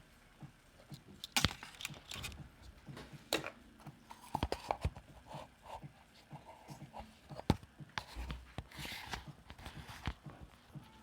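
Scattered light clicks, taps and a few sharper knocks of a soldering iron and small tools being handled against a laptop's open case and circuit board during a solder repair of a loose button contact.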